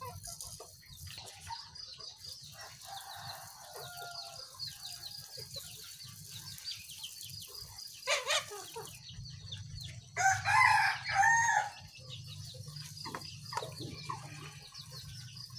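A rooster crows once, about ten seconds in, the loudest sound here, with chickens clucking faintly around it.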